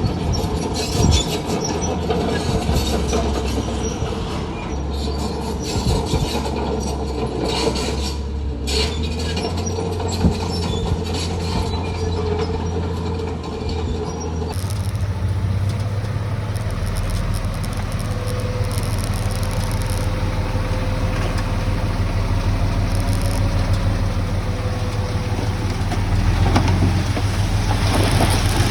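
Heavy diesel construction machinery running steadily at work, with scattered knocks in the first half. The engine sound changes abruptly about halfway through.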